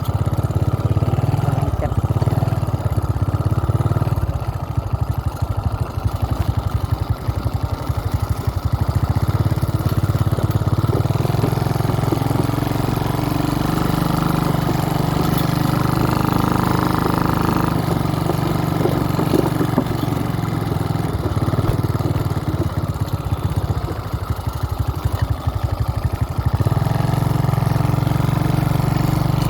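Motorcycle engine running continuously while riding off-road, its note rising and falling as the throttle is worked.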